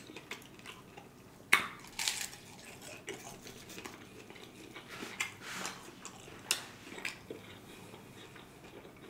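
Close-miked chewing of a crunchy hard-shell taco: scattered crunches and mouth sounds, the sharpest crunches about one and a half and two seconds in.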